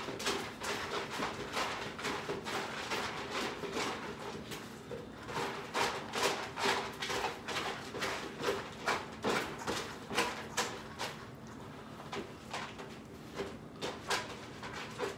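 Several cats eating canned wet food from tins on a tile floor: quick, irregular clicks and smacks of chewing and licking, several a second at their busiest.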